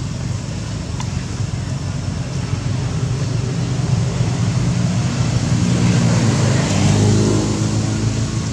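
A motor running steadily with a low hum, growing louder about six to seven seconds in.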